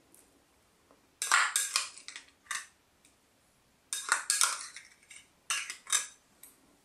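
Shredded cabbage coleslaw being stirred together with mayonnaise in a glass bowl: bunches of short crunchy, rustling and scraping sounds, coming about a second in, again around four seconds and again near the end.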